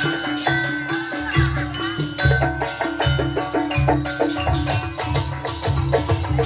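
Live gamelan-style Jaranan accompaniment: tuned gongs or metallophones struck in a quick, even beat of about four strokes a second over deep drum strokes, with short held melody tones on top.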